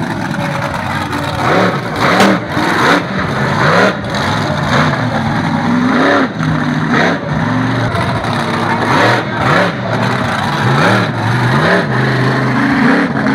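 Monster truck engine revving up and down over and over as the truck drives around, each rev a rise and fall in pitch, with loud rough bursts in between.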